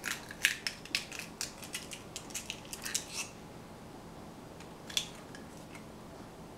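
An egg cracked and its shell broken apart over a bowl: a quick run of small sharp cracks and clicks for about three seconds, then one more click about five seconds in.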